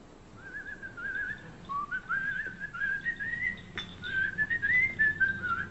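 A person whistling a tune, a single wavering melody in short phrases, with one brief click partway through.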